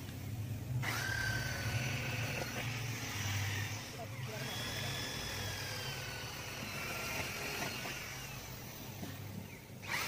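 Hand-held electric drill running with a steady whine in two long stretches, starting about a second in, pausing briefly around four seconds and stopping near the end, as it reams out scale-clogged spray holes in a cooling tower's water distribution tray. A steady low hum runs underneath.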